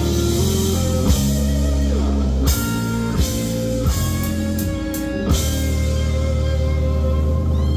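Live rock band playing: guitars holding chords that change every second or so, with a handful of sharp drum hits.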